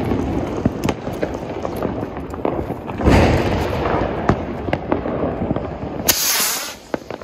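Diwali firecrackers going off: dense crackling and popping, with a louder bang about three seconds in and a short, sharp hiss near the end.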